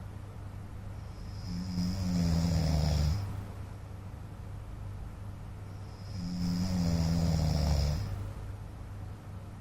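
A man snoring in his sleep: two long snores about five seconds apart, each about two seconds of low droning with breathy hiss, with quieter breathing in between.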